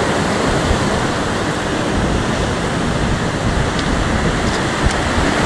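Storm waves breaking and washing up the shore in a steady, loud rush of noise, with strong wind rumbling on the microphone.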